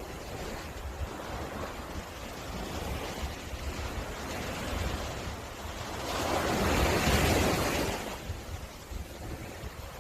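Sea waves breaking and washing on a beach, one wave swelling loud about two-thirds of the way through and then receding, with low wind rumble on the microphone.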